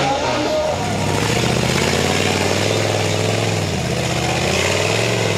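Trial prototype 4x4 buggy's engine running under load as it crawls up a steep slope, the revs swelling, easing off about four seconds in, and picking up again near the end.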